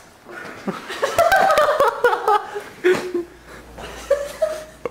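People laughing and chuckling in short, choppy bursts, loudest about a second or two in.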